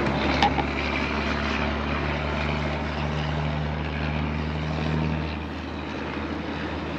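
A steady, low engine drone over a broad hiss. It eases a little about five seconds in.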